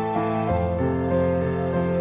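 Slow, sad-sounding background music: a melody of sustained notes over held bass notes, with a deeper bass note coming in about half a second in.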